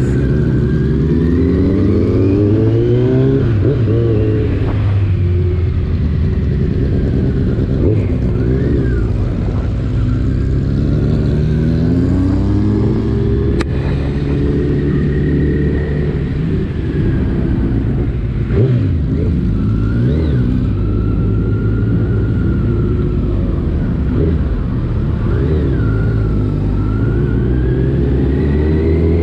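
Motorcycle engine heard from the rider's own bike, rising in pitch as it accelerates and dropping back at each gear change, over and over.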